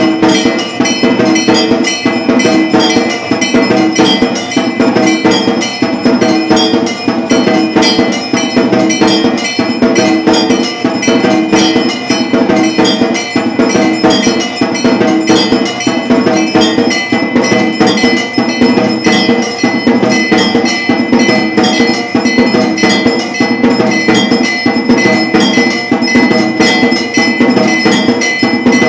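Temple bells and percussion ringing for an aarti, a loud, unbroken, rhythmic clanging of struck bells with a steady ringing tone above it.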